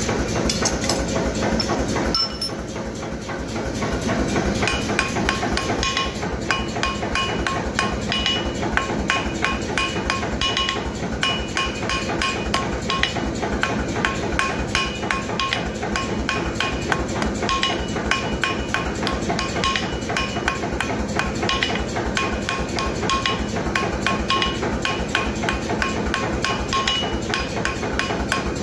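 A blacksmith's hand hammer striking a red-hot steel bar on an anvil in a fast, steady run of blows, each with a short metallic ring from the anvil. A steady low roar stops about two seconds in, just before the hammering settles in.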